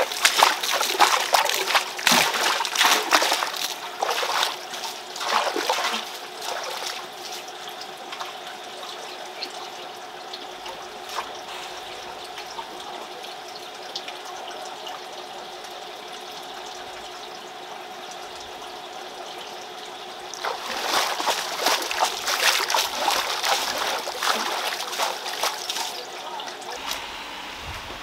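Water trickling steadily, with two louder spells of splashing and pouring: one in the first several seconds and one starting about two-thirds of the way through.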